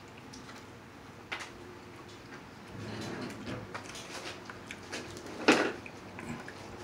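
Cooked king crab legs being handled and broken apart while eating: a few faint clicks and one sharp crack of shell about five and a half seconds in.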